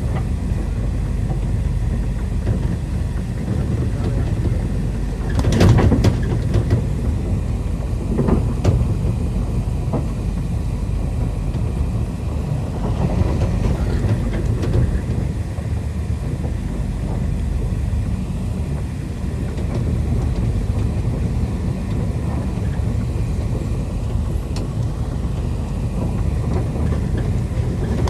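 Passenger train running on the rails: a steady low rumble, with a few louder knocks, the strongest about six seconds in.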